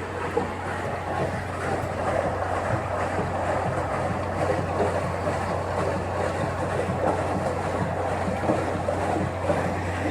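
Coin-laundry washing machine running: a steady churning noise over a constant low hum.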